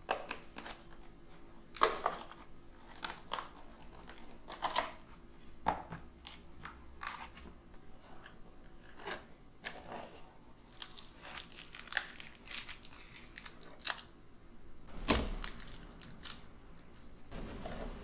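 A white paperboard cake box being opened by hand: its tabs and flaps click and rustle, with a louder knock twice, then paper crinkles as a cake in a paper cup is lifted out.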